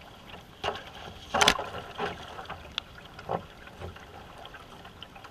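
Canoe paddles stroking through river water, with a short splash at each stroke, several of them at irregular intervals. The loudest is a sharp hit about a second and a half in.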